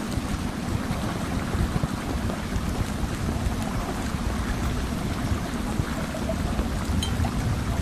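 Steady rushing, water-like noise with a deep, fluttering rumble underneath and no pauses, the background sound bed of a subliminal audio track.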